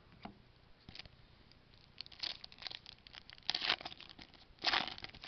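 Baseball trading cards and their foil pack wrapper being handled, crinkling and rustling in several short bursts, the loudest two near the end.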